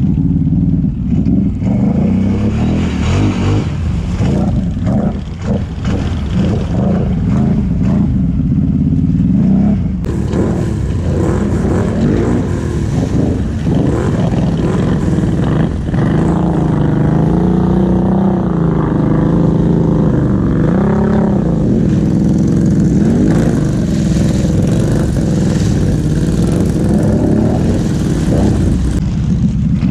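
V-twin Can-Am ATV engines running and revving as the quads plough through deep water, the engine pitch rising and falling with the throttle, with water splashing and churning around them.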